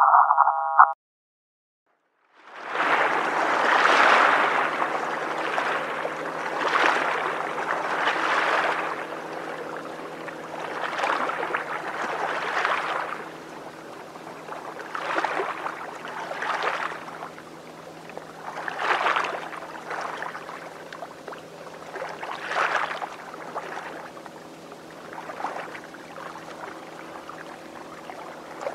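A short electronic chime, a moment of silence, then river water lapping in swells every two to three seconds over a steady low hum.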